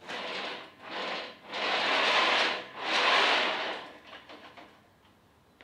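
Steel gantry of a DIY CNC table rolling on V-groove bearings along its steel rails, pushed by hand in four swells of rolling rumble, the last two longer and louder. The gantry is being run along the rails to check that it tracks true.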